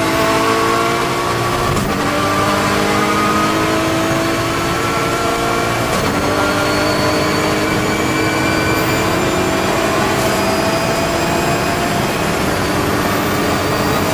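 KTM X-Bow GT4 race car's turbocharged five-cylinder engine accelerating hard, its pitch climbing steadily and dropping back at upshifts about two and six seconds in.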